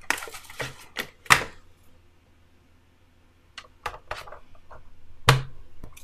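Sharp plastic clicks and knocks from handling the Dirt Devil Spider M607 robot vacuum's side brushes and fitting them on its underside: a few in the first second and a half, the loudest about a second and a half in, a short lull, then more clicks toward the end.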